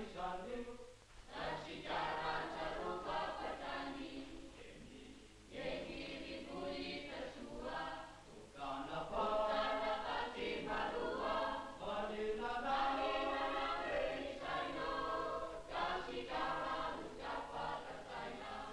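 A choir singing, in phrases separated by short pauses.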